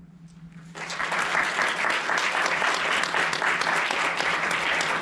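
Audience applauding, the clapping starting about a second in and carrying on steadily.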